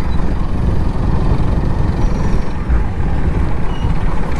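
Steady low wind rumble on the microphone of a moving motorcycle, mixed with road noise.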